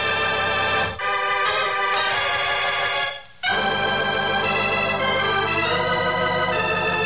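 Organ music playing held chords as a bridge between scenes, breaking off briefly a little over three seconds in before a new chord sounds.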